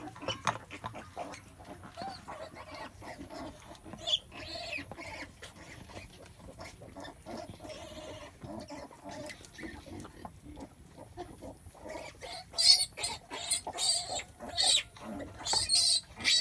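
Pigs at farrowing, a sow and her newborn piglets, making soft, irregular grunts and squeaks, with a run of louder, sharper bursts for the last few seconds.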